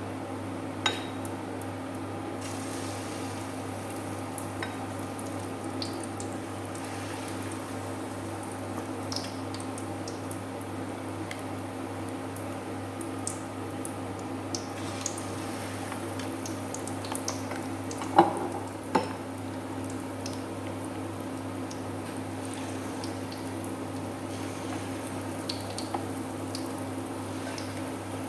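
Battered vegetables deep-frying in hot oil with a steady sizzle, broken by a few sharp taps of a utensil against the pan, the loudest about 18 seconds in.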